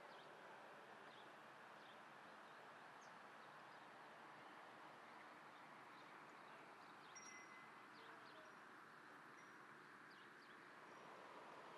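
Near silence: faint outdoor background hiss with a few scattered faint bird chirps.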